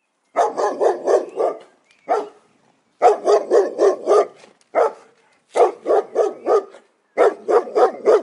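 Guard dog barking at intruders: rapid volleys of about four to six barks, roughly four a second, broken by short pauses and single barks.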